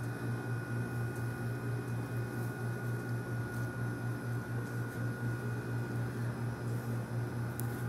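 A steady low machine hum with a faint, steady high-pitched whine above it.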